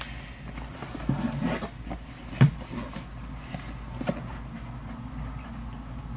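Packaging being handled and taken off a new laptop: soft rustling with a few light knocks and taps, the sharpest about two and a half seconds in.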